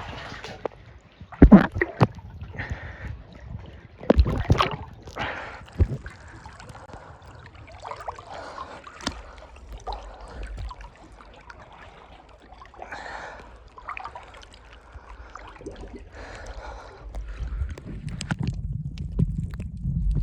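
Sea water sloshing and slapping against a small boat's hull, with several sharp slaps in the first six seconds. A low rumble builds near the end.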